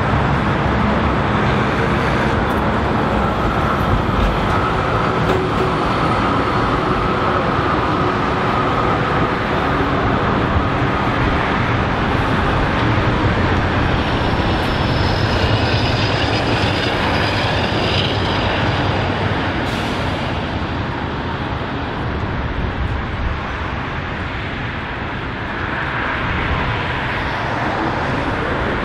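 Comeng B2-class articulated electric tram running on street track, its wheels and motors humming over steady road traffic. A high, thin whine rises out of the noise for several seconds past the middle.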